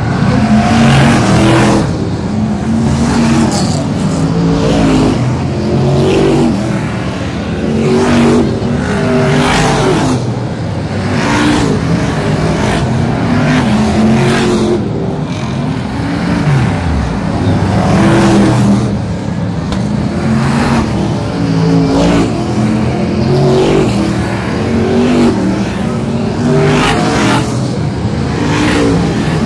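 Brisca F1 stock cars' V8 engines racing round an oval. The engines rise and fall as cars accelerate out of the turns and pass one after another, and about halfway through one engine's pitch drops as it goes by.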